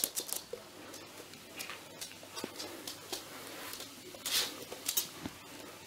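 Light scattered clicks and scuffles of a puppy moving about on a wooden floor, with a brief rustle about four seconds in as it comes close.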